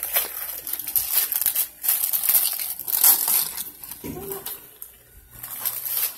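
Shiny gift wrap crinkling and rustling in irregular bursts as a wrapped present is handled and unwrapped by hand.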